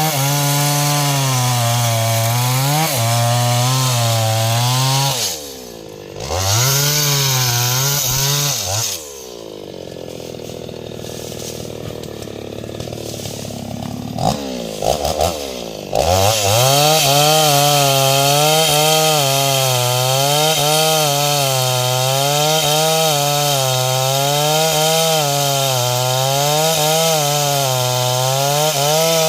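Stihl MS 381 two-stroke chainsaw running at full throttle while cutting wood, its pitch wavering under load. About nine seconds in it drops to idle for several seconds, with a few quick throttle blips, then goes back to full-throttle cutting.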